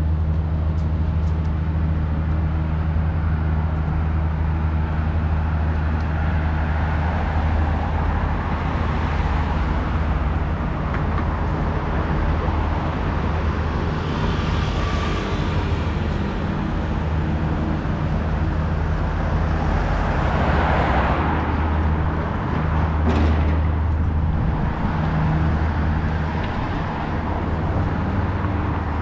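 Street traffic: a steady low engine hum runs underneath while vehicles pass, swelling about halfway through and again about three-quarters of the way through.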